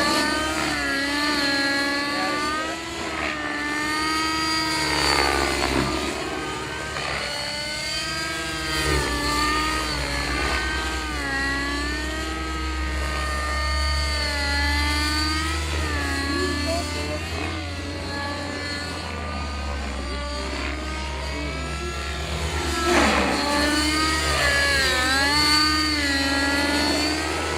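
Radio-controlled helicopter flying, the pitch of its motor and rotor repeatedly rising and falling as it manoeuvres.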